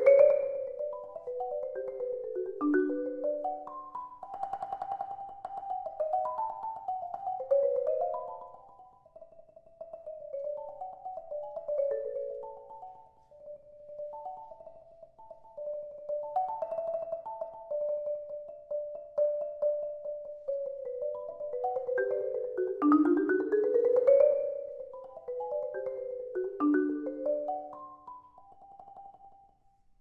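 Solo marimba played with two mallets: a quick stream of struck wooden-bar notes, louder at first, softer and sparser through the middle, then a fast rising run about two-thirds of the way in before it dies down near the end.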